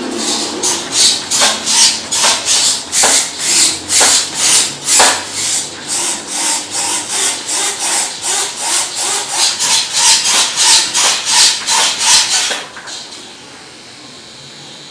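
Model servos driven back and forth from the joystick, giving a rhythmic buzzy rasp about two to three strokes a second that stops abruptly about 12.5 seconds in.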